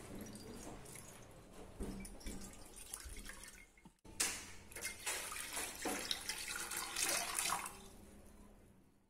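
Water pouring from a plastic measuring jug into a stainless steel pan, a soft splashing stream. It is briefly interrupted about four seconds in and stops shortly before the end.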